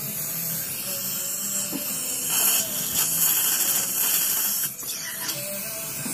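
Dental implant handpiece running in the patient's mouth, a faint whine under a steady hiss of water spray and the suction tip. The hiss grows louder from about two seconds in, then dips briefly near the end.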